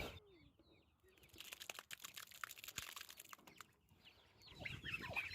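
Chickens clucking faintly, with scattered light taps and rustles.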